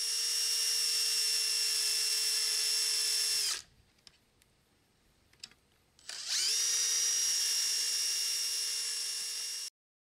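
Handheld electric sander with a round sanding disc, running with a steady high whine as it sands an old wooden stand. It winds down about three and a half seconds in, a few light knocks follow in the pause, then it spins back up about two and a half seconds later and runs until it cuts off near the end.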